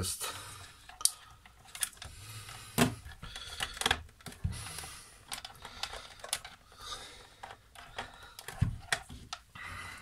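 Irregular small plastic clicks, taps and knocks as a wired connector and its cable are worked loose from the main board of a Nespresso Inissia coffee machine inside its hard plastic housing. A few clicks stand out louder than the rest.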